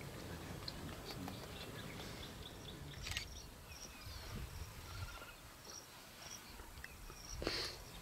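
Faint bush ambience of insects and small birds chirping in short, high calls over a low rumble. There is a sharp click about three seconds in and a brief louder burst near the end.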